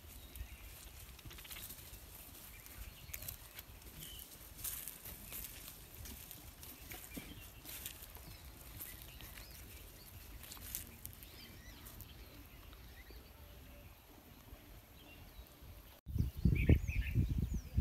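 Quiet rural outdoor ambience with faint rustles and clicks and occasional bird calls. Near the end, after a sudden break, a loud low rumble on the microphone sets in, with birds chirping over it.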